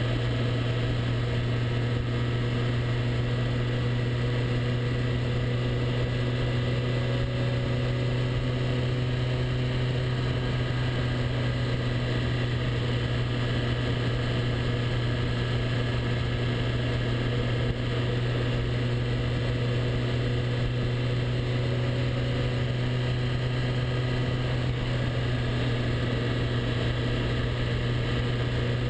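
Motorcycle engine running at a steady cruising speed, with wind and road noise, heard from on the moving bike.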